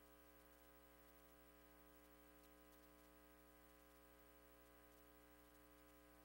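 Near silence: a faint, steady hum under a light hiss.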